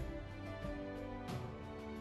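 Instrumental background music with held notes, moving to a new chord about a second and a half in.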